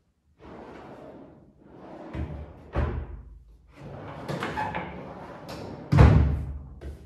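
Plywood drawers of a wooden tool cart being slid open and pushed shut several times, with knocks as they close. The loudest is a thud about six seconds in as a drawer is shut.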